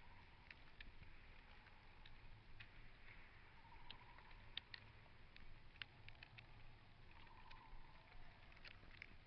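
Near silence: quiet woodland with faint, scattered ticks and crackles.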